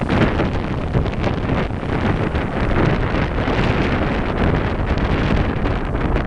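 Strong winter sea wind gusting against the microphone: a dense, rushing noise that swells and eases without a break.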